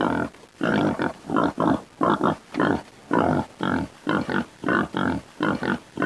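An animal calling in short, rough calls, about two a second, each under half a second long.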